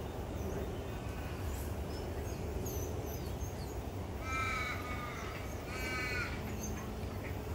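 African wild dogs twittering at a kill: high, rapid chattering calls in two louder bursts about halfway through, with fainter squeaks before them, over a steady low background rumble.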